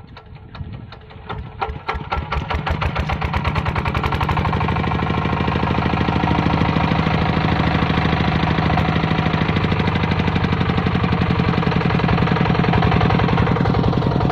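Single-cylinder diesel engine of a two-wheel hand tractor coming up to speed, its knocks growing louder and quicker over the first few seconds, then chugging with a steady fast beat as the tractor ploughs.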